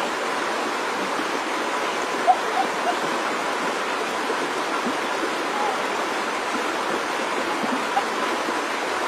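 Shallow, muddy river water rushing steadily past, an even hiss of flowing water. A few brief, faint chirps sit over it about two seconds in and again near the end.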